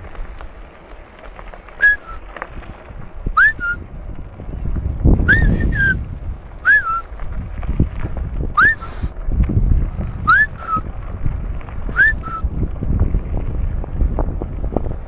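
A repeated whistled call, about eight times, each a quick note that rises and falls, often followed by a short lower note, about every one and a half to two seconds, over a steady low rumble.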